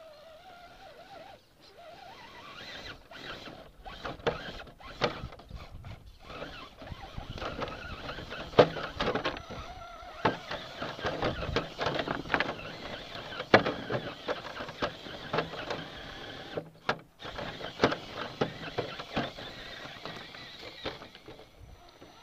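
Scale RC rock crawler (Axial SCX10 with a Cherokee body) climbing a boulder pile: irregular knocks, clicks and scrapes of its tyres and chassis on the rocks over the whirr of its small electric drivetrain, with two sharper knocks about a third and two-thirds of the way through.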